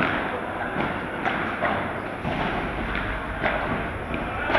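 Padel ball being struck by solid padel rackets and bouncing off the court and walls during a rally: an irregular series of sharp hits, a few a second, echoing in a large indoor hall.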